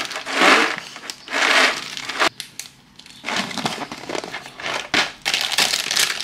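Small dry snacks poured from a plastic jar into a plastic bag, rattling in three short pours. After a brief pause, the jar's plastic lid is screwed on and a plastic sweets bag is crinkled and pulled open.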